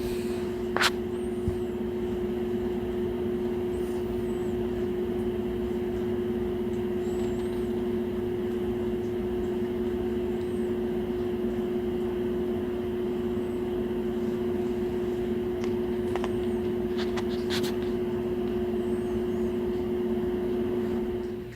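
Steady machine drone with a constant low hum, with a few faint high chirps and light clicks over it.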